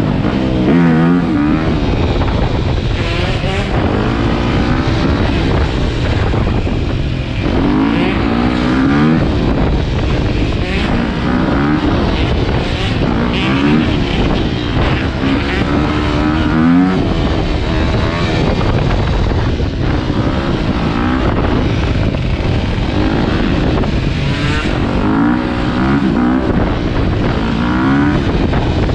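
Dirt bike engine revving hard and climbing in pitch again and again as it runs through the gears, over a steady rush of wind on the microphone.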